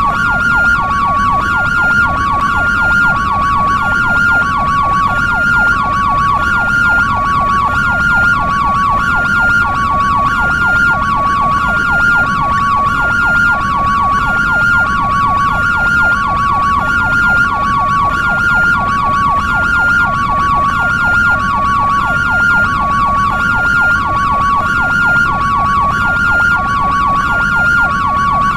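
European ambulance hi-lo siren: two tones alternating evenly, high then low, a little more than one high-low cycle a second. A fainter, faster rising-and-falling wail runs underneath.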